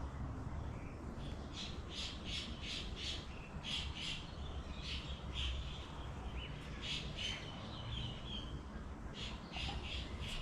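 Birds squawking, short harsh calls in quick runs of two to five, with pauses between the runs, over a low steady hum.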